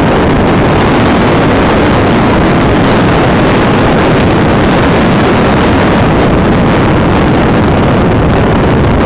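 Loud, steady wind buffeting the microphone on a boat under sail.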